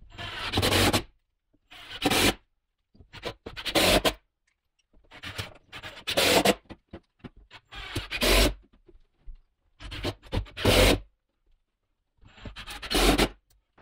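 Repeated rubbing and scraping strokes against the wooden window frame of an OSB box blind: about eight strokes, each under a second long, with short pauses between them.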